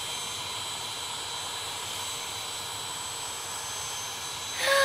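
Cartoon sound effect of a jet airliner in flight: a steady engine rush without change in pitch. A brief voice-like sound with falling pitch comes near the end.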